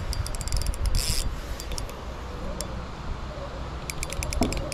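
Fishing reel clicking in two quick runs of rapid, even clicks, one near the start and one near the end, during the fight with a heavy fish. Under it is a steady low rumble.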